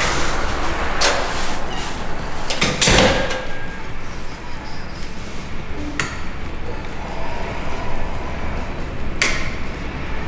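Door and gate noises: a few sharp clicks and knocks from a wrought-iron security gate and door being opened and shut while walking through. The loudest, with a low thud, comes about three seconds in, and single clicks come about a second in, at six seconds and just after nine seconds, over steady background noise.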